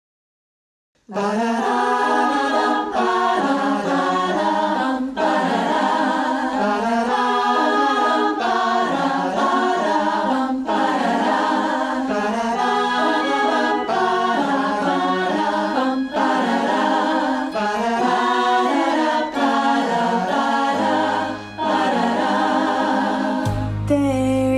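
Mixed virtual choir singing a cappella in close harmony, coming in suddenly about a second in. A low sustained bass note joins near the end.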